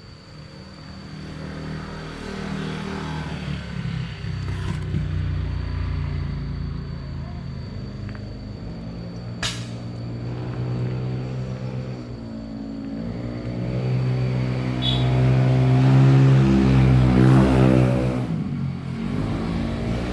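A motor vehicle's engine running and passing close by, growing louder to its loudest a few seconds before the end, then falling away. A single sharp click about halfway through.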